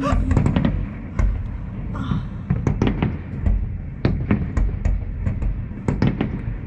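A fireworks display going off: irregular sharp bangs and cracks, about two or three a second, over a steady low rumble.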